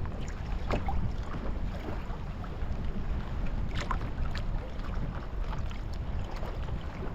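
Strong wind buffeting the microphone as a steady low rumble, with scattered short knocks or splashes on the kayak, the clearest about a second in and about four seconds in.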